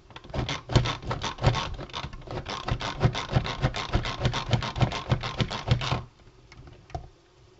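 Pampered Chef manual food processor being pumped by hand, its blades chopping onion in the plastic bowl. It makes rapid, rhythmic strokes, several a second, which stop about six seconds in.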